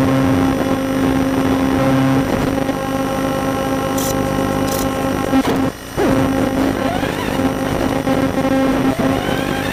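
Radio-controlled truck running, heard from its onboard camera: a steady hum with a motor whine that rises in pitch about seven seconds in. The sound cuts out briefly just past halfway.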